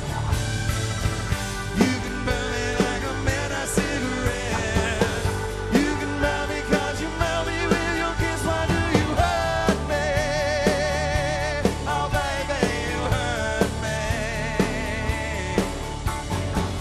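Live country-rock band: a man singing with vibrato over strummed acoustic guitar, with drums keeping a steady beat of about two hits a second.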